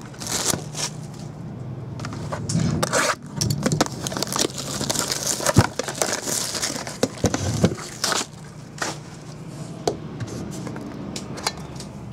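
Clear plastic wrapping crinkling and crackling as it is pulled off a round metal card tin, with sharp clicks and taps from handling the tin. The crinkling is busiest for the first eight seconds or so, then thins to scattered clicks.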